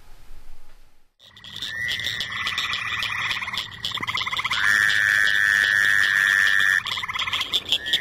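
Fowler's toads calling: several overlapping buzzing calls of one to two seconds each, starting about a second in, the loudest in the middle. A higher, faster pulsing chorus of other frogs goes on behind them.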